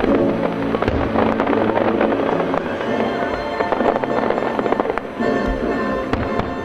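Fireworks bursting in quick succession, sharp cracks and pops with heavier low booms about a second in and again around five and a half seconds, over the show's music.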